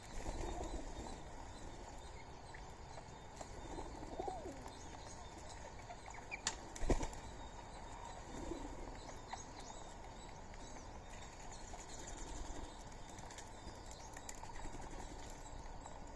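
Birds at a feeding spot: wings flapping, with a few soft calls. A sharp click about seven seconds in is the loudest sound.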